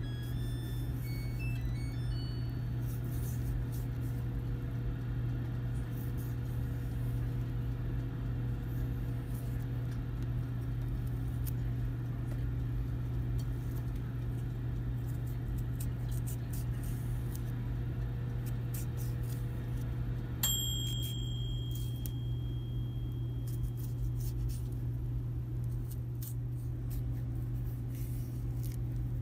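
A steady low hum with a faint higher whine above it. About two-thirds of the way in there is a single sharp click, and a high ringing tone after it fades over a few seconds.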